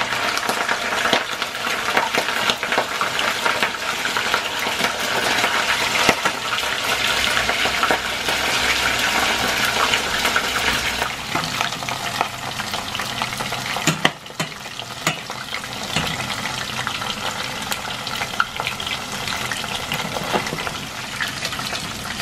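Cornflour-coated chicken feet deep-frying in a pot of hot oil: a dense, steady sizzle thick with small spattering pops, the first batch just lowered into the oil.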